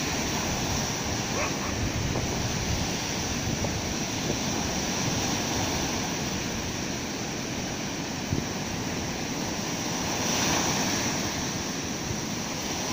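Baltic Sea surf: small waves breaking and washing up a sandy beach in a steady rush, with one wave surging louder about ten seconds in.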